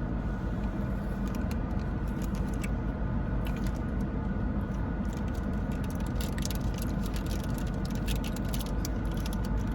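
Steady low rumble of a car cabin on the move, with many small clicks and rustles from handling snack packaging and eating.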